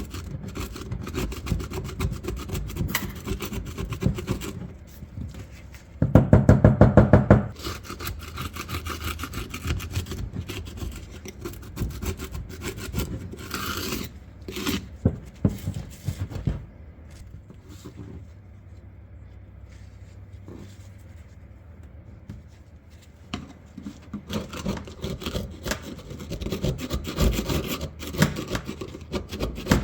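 Rust and rust flakes being scraped off the steel of an old double-barrel shotgun by hand, in repeated rasping strokes. About six seconds in there is a louder, faster burst of scraping, and there is a quieter stretch in the middle before the strokes pick up again.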